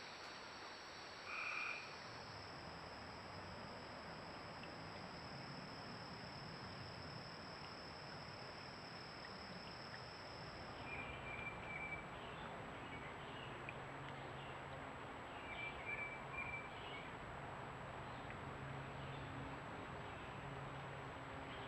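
Frogs calling by a creek: a few short trilled calls with some faint low calls, over steady hiss. A high steady whine stops about halfway through.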